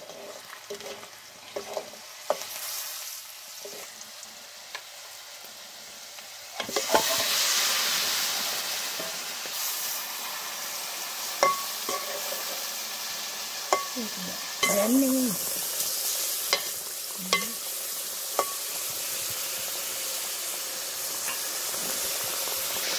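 Fish pieces frying in hot oil and spice paste in a metal pot over a wood fire, sizzling steadily, with a ladle stirring and clinking against the pot now and then. The sizzle jumps up sharply about seven seconds in.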